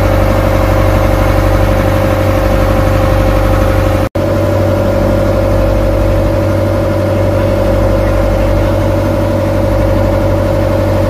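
A boat engine running steadily at constant speed, with a very brief break in the sound about four seconds in.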